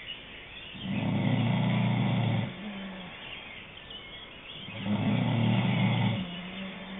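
Snoring: two long, rough snores about four seconds apart, each followed by a short humming note.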